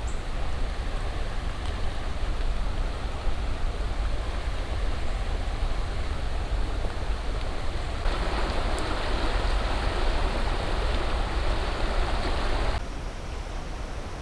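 Fast, high creek water rushing steadily. The rush grows louder about halfway through and then cuts off suddenly near the end.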